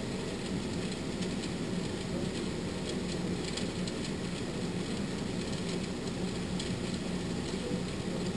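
Steady background hiss with a low hum, even in level, with no distinct events.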